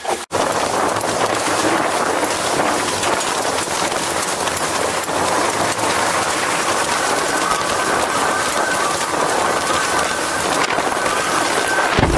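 Water and spray hissing past the hulls of a Hobie catamaran sailing at about 23 to 30 mph: a loud, steady rushing noise with little low rumble. A faint high whistle joins about halfway through.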